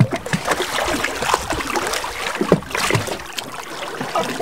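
Sea water splashing and sloshing around a man swimming breaststroke close to a sailing yacht's stern: an uneven run of small splashes.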